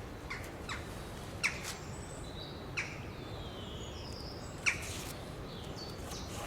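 Birds chirping in the background over steady outdoor noise, with a few short, sharp clicks, the loudest about a second and a half and about five seconds in.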